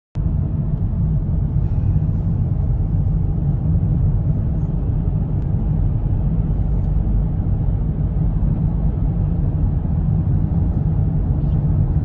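Car driving on a highway, heard from inside the cabin: a steady low rumble of road and engine noise.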